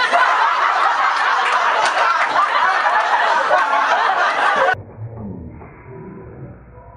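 Many people laughing loudly together, which cuts off abruptly about four and a half seconds in, leaving a much quieter, muffled low rumble.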